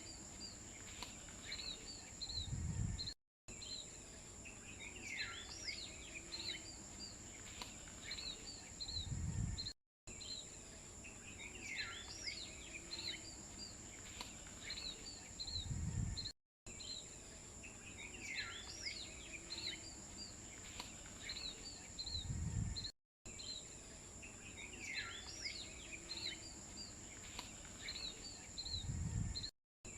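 Nature ambience of bird chirps over a steady, high-pitched insect drone. A short clip of it repeats about every six and a half seconds, each time ending in a brief low rumble and then a moment of dead silence.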